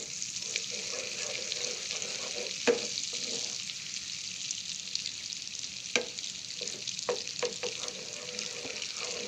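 Melted butter sizzling and crackling in a hot pan as it heats, a steady hiss broken by a few sharp knocks.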